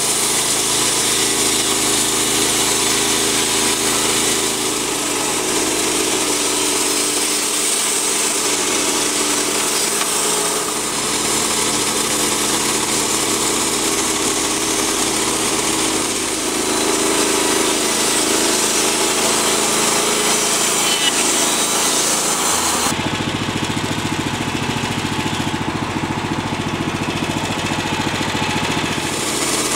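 Portable bandsaw sawmill running, its engine driving the band blade through a black cherry log in a steady cut. About three-quarters of the way through, the sound shifts to less hiss and more low hum.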